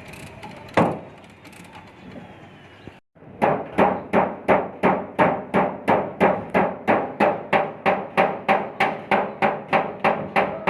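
Hammer blows on a steel car bonnet as dents are beaten out, about three a second in a steady rhythm, each with a short metallic ring. A single knock comes about a second in.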